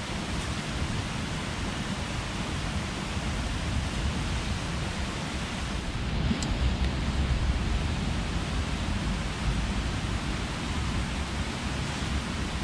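Steady rain on the canvas flysheet of a lavvu tent, an even hiss with a low rumble beneath it.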